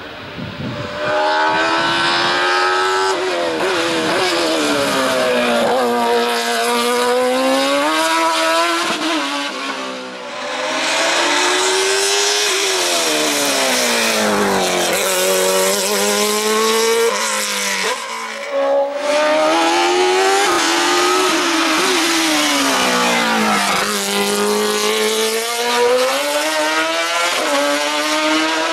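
Open-cockpit sport prototype racing car's engine revving hard uphill, its pitch climbing and dropping over and over as it accelerates, changes gear and slows for the bends. The sound dips briefly twice along the way.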